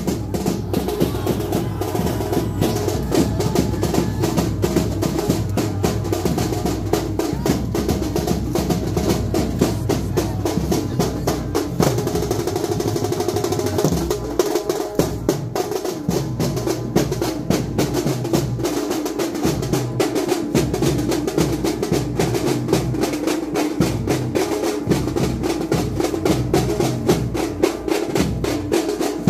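Large double-headed dhol drums beaten with sticks in a fast, continuous rhythm, forming a dense roll of strokes; from about halfway on, the deep low end comes in separate pulses rather than a constant boom.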